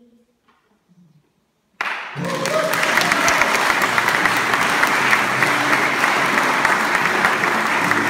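A held sung note dies away, then about two seconds in an audience breaks into loud, sustained applause, with the band's guitars still sounding underneath.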